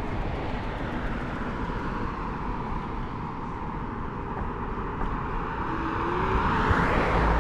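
Wind rumbling on a GoPro microphone, with road and tyre noise, while riding an Apollo Go electric scooter. The rushing noise swells louder near the end.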